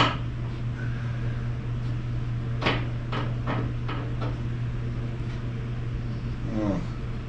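A handful of light metal knocks and clanks, the sharpest about two and a half seconds in, from a steel punch being worked up against a car's floor at the body-bolt hole. A steady low hum runs underneath.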